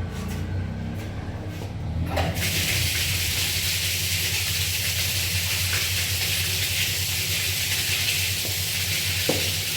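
Electric water pump motor running with a steady low hum; about two seconds in, water starts gushing out with a steady rushing hiss.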